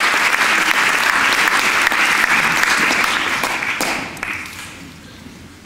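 Audience applauding, the clapping fading away about four seconds in.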